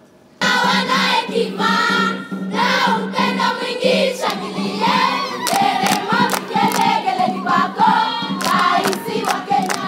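A school choir starts singing a song in Swahili about half a second in, loud and full, over a steady low note. Sharp beats join in the second half.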